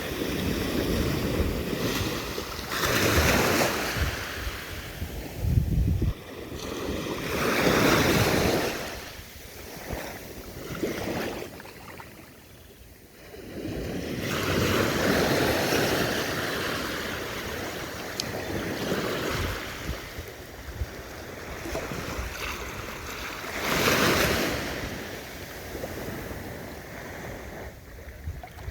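Sea waves breaking and washing ashore, the surf swelling and fading every few seconds.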